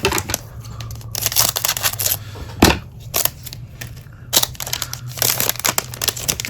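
Trading cards and their foil pack wrapper being handled, with bursts of crinkling and rustling and a sharp click about two and a half seconds in.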